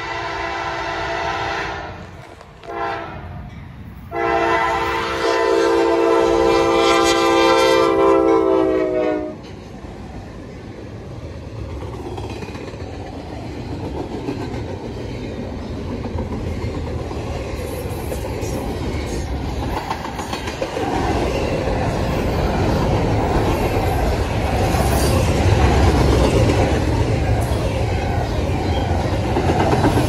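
Norfolk Southern freight locomotive's multi-chime air horn sounding a long blast, a short one, then a final long, loud blast whose pitch sags as the locomotive goes by. Then the double-stack intermodal train rolls past, a steady rumble with wheels clacking on the rail joints that grows louder over the last ten seconds.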